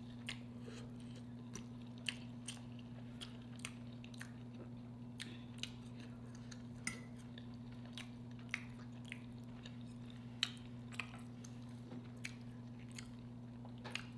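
Close-miked chewing and eating of red snapper and sautéed cabbage, with scattered sharp clicks, over a steady low electrical hum.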